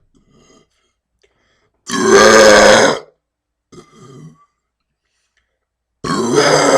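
Deliberate loud burps, two of them: a long one lasting about a second, starting about two seconds in, and another starting near the end.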